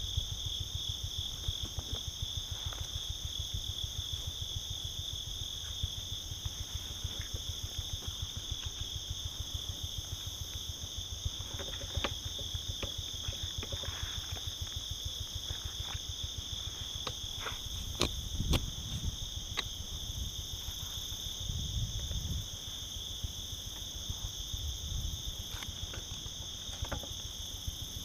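Night insects chirring in a steady, high, unbroken drone, over low rustling of footsteps and gear as someone moves through the woods, with a few sharp clicks and knocks around the middle.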